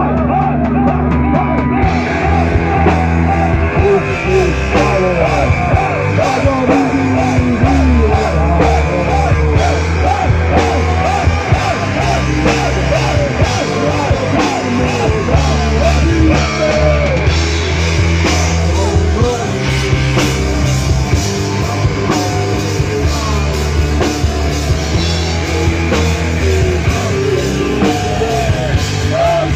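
Live rock band playing loud: electric guitar, bass guitar, keyboard and drum kit, with a sung lead vocal over them.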